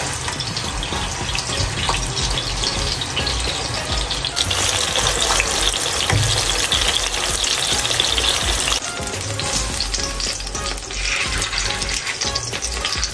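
Chicken burger patties sizzling as they shallow-fry in oil in a nonstick frying pan, with a silicone spatula working under them to turn them. The sizzle grows louder for a few seconds in the middle.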